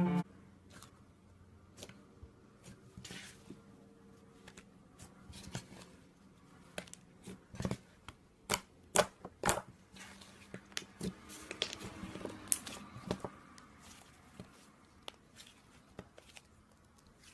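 Slime being squished and poked by hand: irregular sticky clicks and pops, thickest about halfway through.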